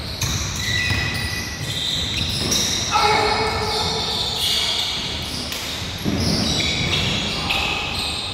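Basketball game on a hardwood gym floor: sneakers squeak in short, high chirps as players cut and stop, a basketball bounces, and players' voices call out.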